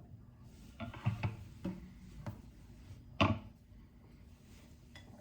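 A few light knocks and taps of kitchenware being handled, with one sharper knock about three seconds in.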